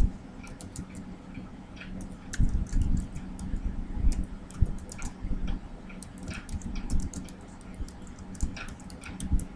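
Typing on a computer keyboard: a quick, irregular run of key clicks with a few heavier low thuds, over a faint steady hum.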